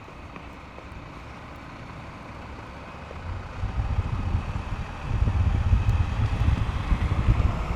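Blizzard wind gusting on the microphone, a deep buffeting rumble that builds about three and a half seconds in and is strongest from about five seconds, over the steady sound of street traffic.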